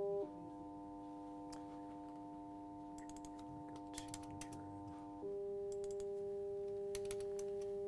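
Steady electronic frequency-modulated tone from a computer FM-synthesis demo, several pure pitches sounding together. About a quarter second in it drops to a lower pitch with more added tones, and about five seconds in it jumps back to the higher set as the settings are changed. A few short computer mouse or keyboard clicks sound over it.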